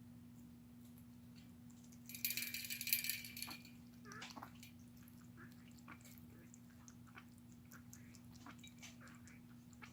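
A pet rabbit makes a burst of rapid rattling clicks about two seconds in, lasting just over a second, followed by faint scattered clicks over a low steady room hum.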